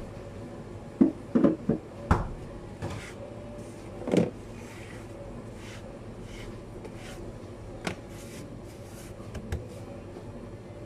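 Handling noises from sushi preparation at a counter: a quick run of knocks and clatters in the first couple of seconds, a heavier thud about four seconds in, and a couple of lighter taps later, as a bamboo rolling mat and containers are moved about. A steady low hum sits underneath.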